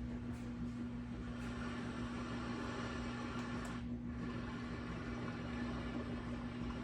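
Sound machine playing one of its recorded nature sounds through its small built-in speaker, a steady hiss with a constant low hum under it. The sound drops out briefly about four seconds in, as when the machine is switched to the next sound.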